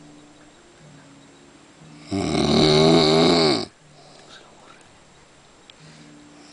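A man snoring in his sleep: one loud, drawn-out snore about two seconds in, lasting about a second and a half and sagging slightly in pitch as it ends, with quiet stretches between snores.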